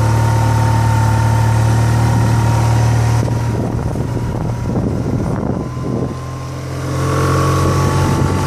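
Motorcycle engine idling steadily, then pulling away and running at road speed, with a short dip in engine sound about six seconds in before it settles into a steady run.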